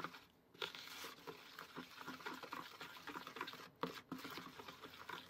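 Wooden spoon stirring thick chocolate cake batter in a plastic mixing bowl, working out the lumps: faint, irregular scrapes and soft taps of the spoon against the bowl.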